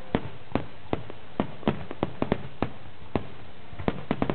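Aerial fireworks bursting in quick, irregular succession: about a dozen sharp bangs, several coming close together, over a steady background of noise.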